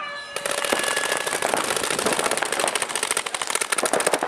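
A horn sounds for about a second, and almost at once many paintball markers open fire together in fast strings of shots that keep going without a break.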